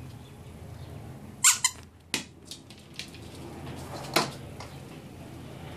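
A puppy's squeaky toy squeaking in short, sharp squeaks, about four in all, the loudest about a second and a half in and again about four seconds in.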